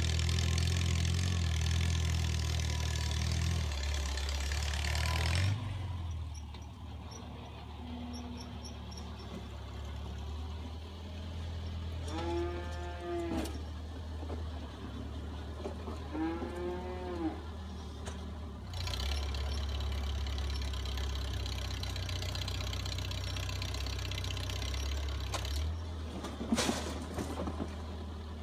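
1949 Farmall Cub's small four-cylinder engine running steadily as the tractor pushes manure with its blade. It is louder for the first few seconds, eases off, and picks up again after the middle. A cow moos twice in the middle, each call drawn out over about a second and a half.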